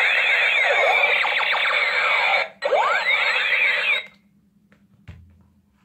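Toy gun's electronic shooting sound effect: a rapid run of rising and falling zapping tones, breaking off briefly about two and a half seconds in, then a second run that stops about four seconds in. A small click follows a second later.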